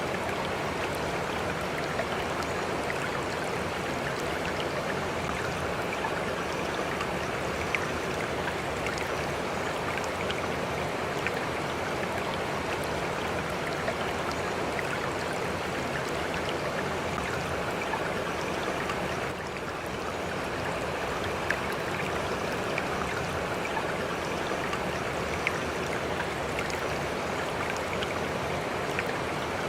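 Steady rushing noise like running water, with faint scattered ticks and a brief dip in level about 19 seconds in.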